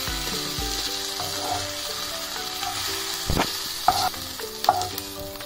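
Hot oil sizzling in a nonstick kadai while a wooden spatula stirs and scrapes out freshly fried onion, ginger, garlic, tomato and green chilli. A few sharp knocks of the spatula on the pan come from about three seconds in.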